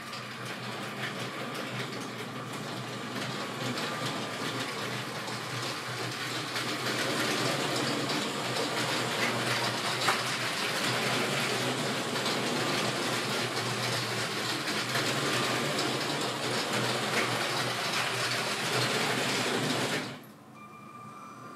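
LEGO City Freight Train (60336) running on plastic track: its battery-powered train motor hums while the wheels rattle over the plastic rails. The sound grows louder over the first several seconds, holds steady, then drops away sharply near the end.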